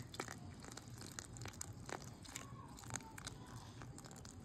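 A whisk stirring thick pancake batter in a mixing bowl, working the wet ingredients into the dry, with irregular light clicks and wet stirring noises.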